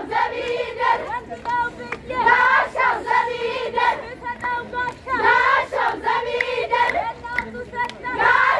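A group of girls singing a Shadey festival song together, clapping their hands. The singing swells into loud phrases about every three seconds.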